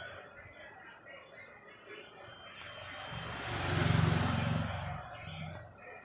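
A vehicle passing by: a low engine hum and rushing noise swell to a peak about four seconds in and fade away, while birds chirp faintly.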